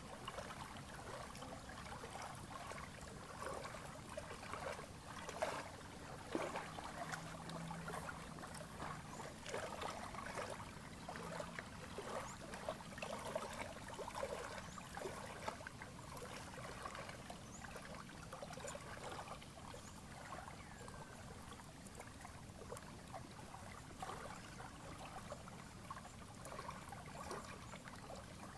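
Small waves of lake water lapping and trickling against the shore, in a steady stream of small irregular splashes.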